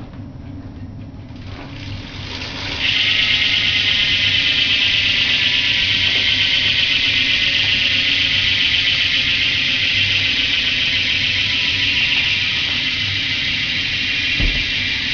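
Polished Demolition Anorexia rear cassette hub on a BMX bike ticking as the rear wheel spins freely: its ratchet pawls make a fast, loud buzz that starts about three seconds in and eases slightly towards the end.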